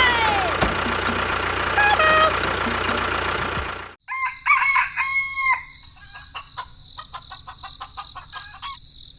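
Chicken calls, a rooster crowing and hens clucking, over a loud noisy background that cuts off suddenly about four seconds in. More calls and a run of quick clicks follow.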